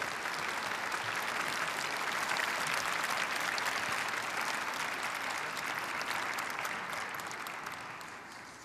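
A large audience applauding, the clapping dying away over the last second or two.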